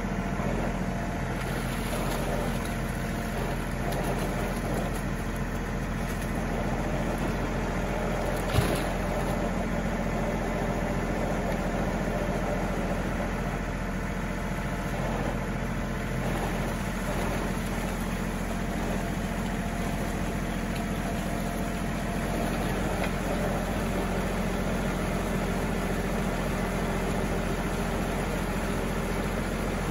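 John Deere compact tractor's diesel engine running steadily while it powers a backhoe attachment digging in a muddy trench. A single sharp knock stands out about eight and a half seconds in.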